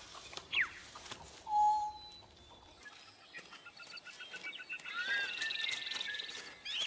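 Squeaky chirps and peeps of a baby owl chick: a quick falling chirp, a short held peep, then a busier run of warbling chirps and a high trill near the end.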